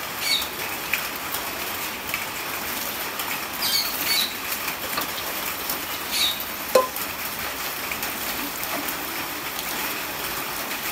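Steady rain falling, with a few short high-pitched sounds and one sharp click about seven seconds in.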